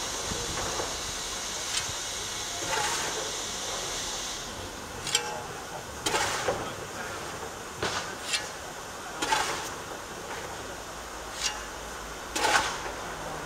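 A steam locomotive standing while its tender takes water from a water column: a steady hiss that stops about four and a half seconds in, with scattered clanks and knocks throughout.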